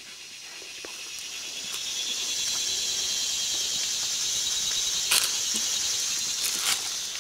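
Cicadas buzzing in a loud, high, steady drone that swells over the first couple of seconds and then holds. Two sharp clicks come through it, about five seconds in and again near the end.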